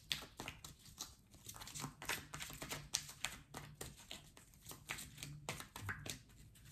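A tarot deck being shuffled and handled: a run of soft, irregular card clicks and rustles, several a second.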